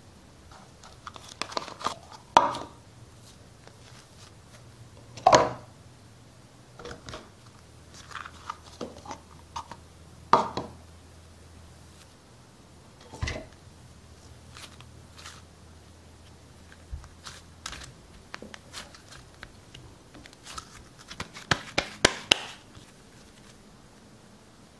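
Soft modeling dough being torn apart, squeezed and pressed by hand, giving irregular short sticky crackles and squelches, with a busy run of them near the end.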